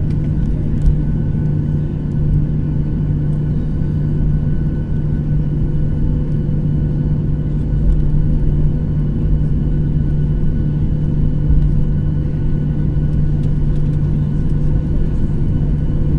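Steady cabin noise of a Boeing 737 taxiing, heard over the wing: the jet engines at idle give a constant low hum with a faint high whine above it, and the level never builds toward takeoff power.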